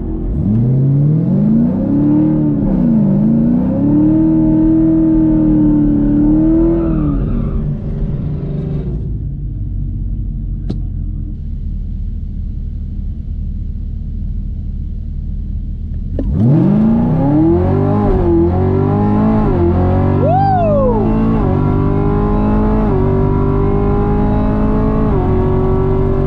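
Camaro ZL1's supercharged V8 heard from inside the cabin. It revs and holds its revs, settles to a quieter idle, then about 16 seconds in launches at full throttle. The loudest part is that launch, and the engine then pulls hard with its pitch climbing and dropping back at each upshift down the quarter mile.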